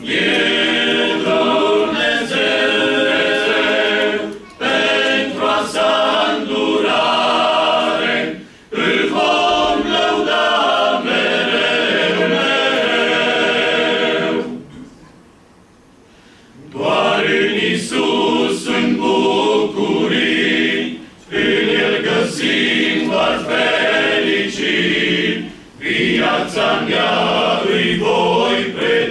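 Men's choir singing a hymn a cappella, many voices in harmony, with a break of about two seconds midway and a few brief breaths between phrases.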